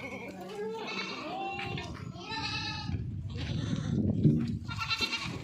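Goats bleating, several separate quavering calls one after another, some overlapping.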